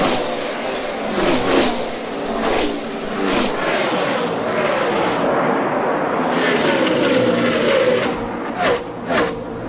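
NASCAR Cup race cars' V8 engines running at full speed, their pitch rising and falling as cars go by. Near the end several cars pass in quick succession, each a short swoop.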